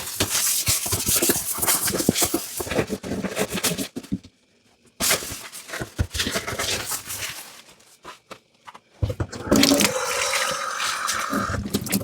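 Hand-washing dishes at a kitchen sink: dishes and utensils clattering and water splashing, with a brief pause about four seconds in and a steadier stretch of sound near the end.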